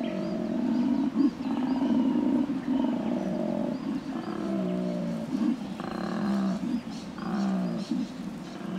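Male koala bellowing: a loud, low-pitched, rasping call kept up without a break as he breathes in and out. It is made by an extra pair of vocal folds outside the larynx. It calls to females and warns rival males of his presence, and the lower the call, the bigger the male.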